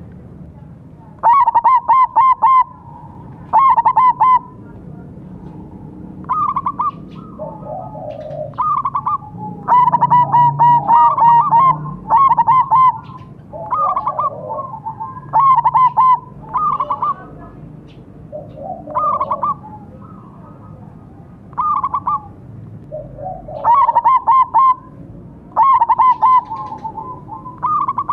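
Two zebra doves (perkutut), a silver colour-morph bird and a local bird, cooing back and forth in their stuttering song. Loud bursts of quick-fire coos come every second or two, with softer, lower coos between them.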